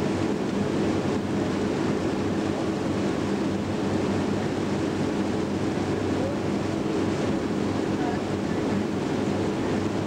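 Boat engine running steadily with a constant low hum, under a rush of wind and water.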